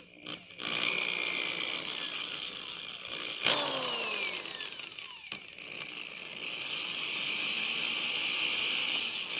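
Electric drill spinning a plywood pulley wheel on a bolt while wet stain is applied to it. The motor revs up sharply and then winds down with a falling pitch, about three and a half seconds in and again at the end.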